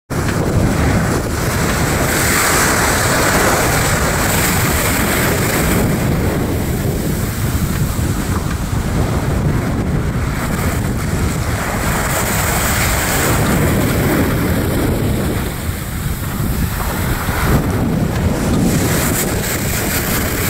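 Wind buffeting the microphone over the rush of waves, on the deck of a sailing yacht under way in a rough sea; the noise swells and eases every few seconds.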